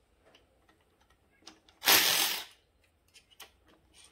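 Ratchet wrench clicking in a quick burst about two seconds in, backing out engine case bolts, with a few light metallic tool clicks around it.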